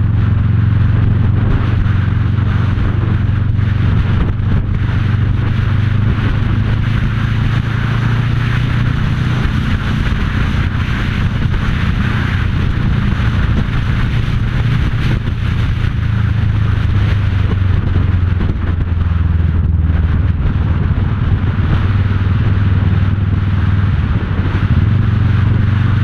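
Sport motorcycle engine running at a steady cruising speed, with only small changes in pitch. Wind rushes over the camera's microphone throughout.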